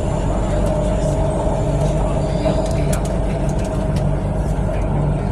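MTR Kwun Tong Line Q-Train running steadily through a tunnel, heard from inside the carriage: a continuous rumble of wheels on track with a steady hum above it.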